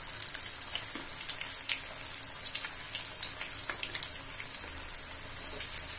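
Batter-coated soya chaap deep-frying in hot oil over a medium flame: a steady sizzle with many small crackles, and one sharper click about four seconds in.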